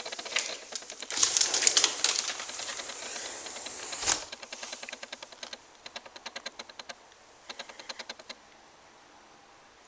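Sliding patio door rolling open along its track with a rattling hiss, then a sharp knock about four seconds in, followed by a run of light clicks that fade out.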